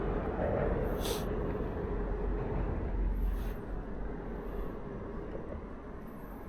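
A vehicle passing: a steady rumbling noise with a faint hum that fades away over the last few seconds.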